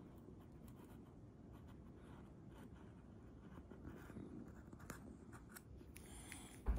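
Faint scratching and light ticks of a blunt syringe needle dragging along an iPhone's frame as a bead of sealant is laid into the seal trough, with a soft thump near the end.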